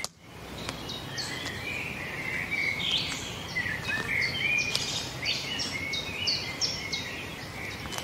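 Wild songbirds chirping and calling over a steady background hiss, after a brief dropout at the very start. From about four seconds in, one bird repeats a short high note about three times a second.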